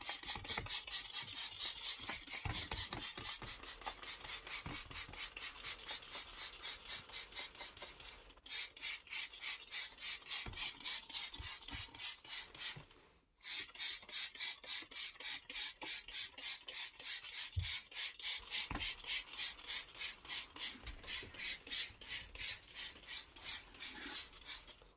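Trigger spray bottle pumped rapidly, about three to four hissing squirts a second, spraying all-purpose cleaner over a vinyl seat. There are two short pauses partway through.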